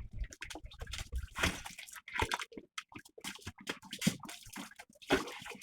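Water sloshing and splashing in short, irregular bursts, with drips.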